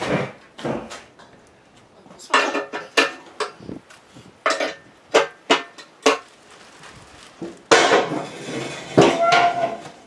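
Steel snow plow parts clanking and rattling as they are handled and set down, in several bursts of sharp knocks, with a short ringing note near the end.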